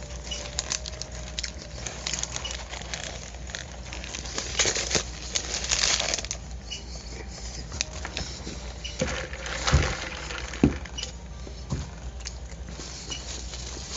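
A fast-food sandwich wrapper being handled, with irregular paper crinkling and small clicks, heavier about five seconds in, and two louder knocks about ten seconds in.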